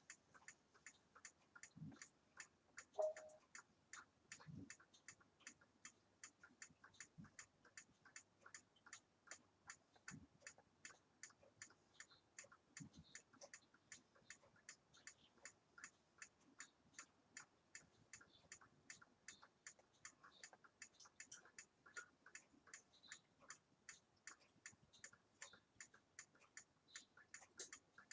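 Faint, steady ticking of a wall clock, with a short tone about three seconds in.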